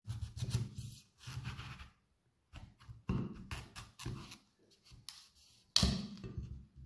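Large chef's knife cutting raw pumpkin into wedges on a wooden cutting board: several slicing strokes with short pauses between them, the loudest coming suddenly near the end.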